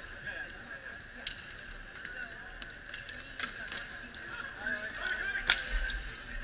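Ball hockey sticks clacking irregularly against the ball, the floor and each other, with the sharpest clack about five and a half seconds in.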